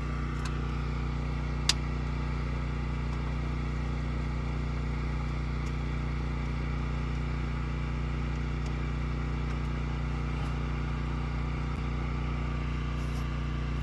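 An engine running steadily at idle, with one sharp click a little under two seconds in.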